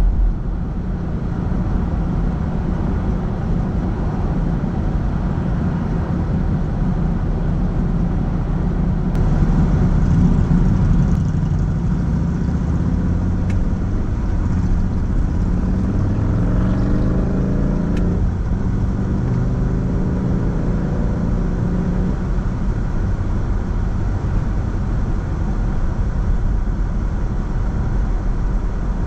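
A car driving, with steady engine and road noise. Around the middle the engine note rises and falls a few times as the car speeds up.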